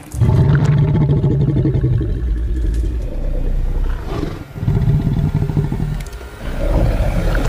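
Loud, deep growling of a giant mutated wolf up close, in three long stretches with short breaks about four and six seconds in.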